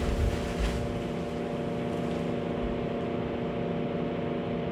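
Steady droning hum with several constant tones in it, and a few soft low thumps in the first second.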